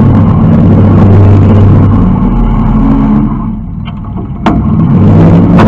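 Demolition derby car's engine revving hard, heard from inside the stripped cabin; it eases off about three seconds in, two sharp knocks come about a second apart, and it revs up hard again.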